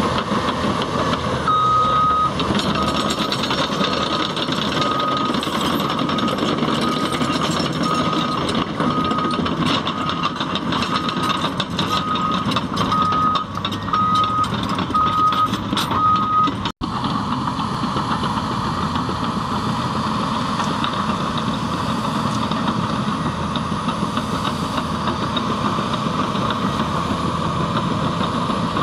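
Cat D6T bulldozer's diesel engine running under load, with its reversing alarm beeping about once a second for some fifteen seconds amid clattering, then stopping at a brief dropout; the engine runs on steadily after it.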